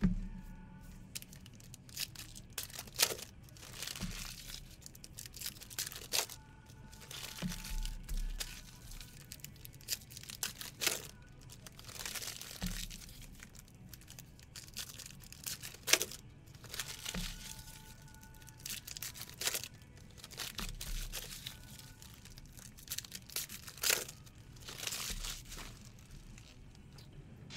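Trading-card pack wrappers being torn open and crinkled, with cards rustling as they are handled and set down on a desk mat, in irregular bursts.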